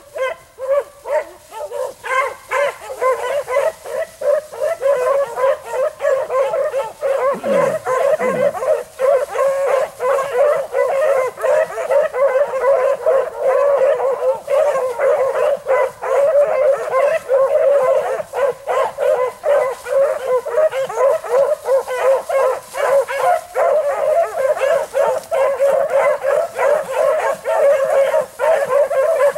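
A pack of rabbit hounds baying continuously in rapid, overlapping barks and howls: the hounds giving tongue while running a rabbit's scent trail.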